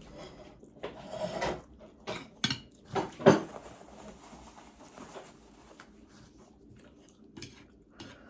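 Eating noodles with utensils at close range: scattered clicks and scrapes of the utensils against the dish, with a louder noise a little over three seconds in.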